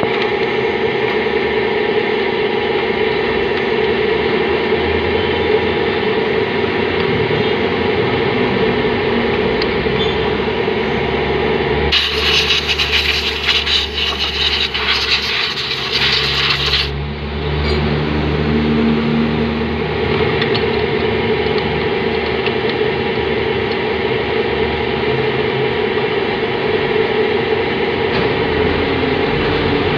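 A paintbrush scrubbing wet Yamaha Mio CVT parts (pulley, roller sleeve, clutch springs) in a tray, over a steady mechanical hum. About twelve seconds in, a loud hiss runs for about five seconds and cuts off suddenly.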